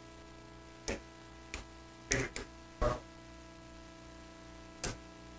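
Quiet room tone with a steady hum, broken by about six brief soft knocks and clicks spread over a few seconds.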